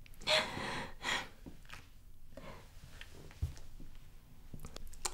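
A woman's sharp, shaky in-breaths and sniffles, as in fake crying while fighting back tears: two strong breaths about a second apart near the start, then fainter breathing.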